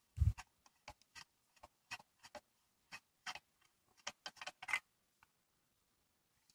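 Irregular light clicks and ticks of a small threaded metal part and its nut being handled and unscrewed by gloved hand from a clutch pedal bracket, with a dull thump just after the start. The clicks stop about three-quarters of the way through.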